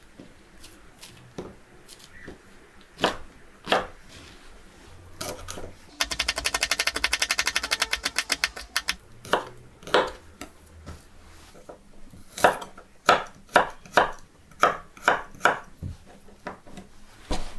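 Kitchen knife on a wooden cutting board: scattered single cuts and knocks, then a fast, even run of rapid chopping lasting about three seconds as green onion is finely sliced, then more separate sharp knocks and cuts.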